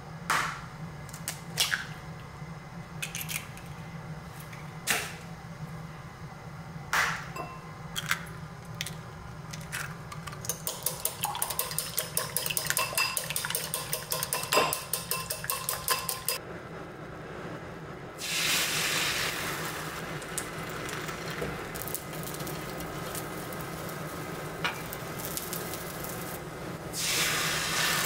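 Eggs knocked and cracked on the rim of a glass bowl, a handful of sharp taps. Then a wire whisk beats them in the bowl with fast, even clinking for about five seconds. After that a hot rectangular tamagoyaki pan sizzles, louder near the end as the beaten egg is poured in.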